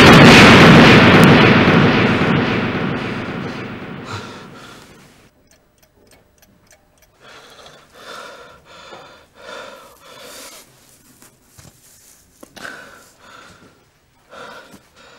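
A loud low boom dies away over the first five seconds. Then a man breathes heavily in short, separate gasps and sobs.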